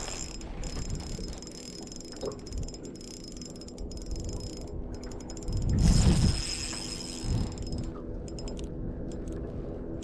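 Small 1000-size spinning reel working under load as a hooked fish is played: a steady mechanical whirr with ratchety clicking from the reel's gears. A louder low bump comes about six seconds in.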